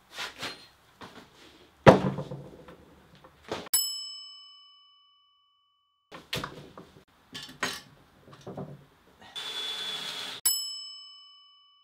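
Metal knocks and clanks from setting up a small milling machine and its machine vise, with one hard clank about two seconds in. A bright bell-like ding rings out twice, fading over about two seconds each time, and there is a second-long whir shortly before the second ding.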